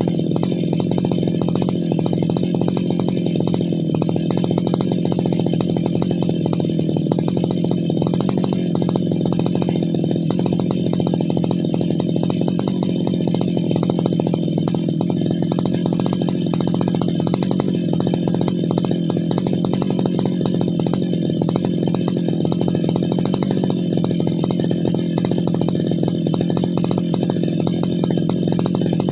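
Brush cutter's small engine running steadily at an even, unchanging speed.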